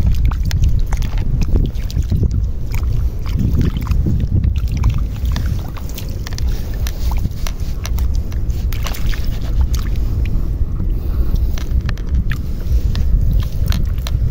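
Wind rumbling on the microphone, with many small scattered clicks and pops from wet mud and shallow water on a tidal mudflat.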